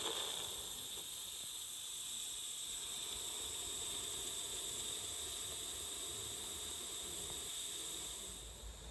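Coal-fired live-steam garden-railway locomotive running past with a steady hiss of steam. Near the end the hiss fades a little and a low rumble comes in.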